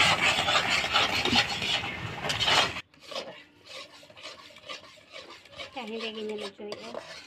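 Metal spatula scraping and stirring thick tomato sauce around a black iron kadai, a harsh rasping scrape that drops off suddenly about three seconds in, leaving only faint stirring.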